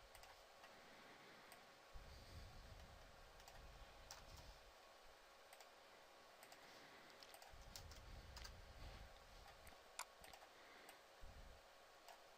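Near silence with faint, scattered clicks of a computer mouse and keyboard, about a dozen, irregularly spaced, over a faint steady hum.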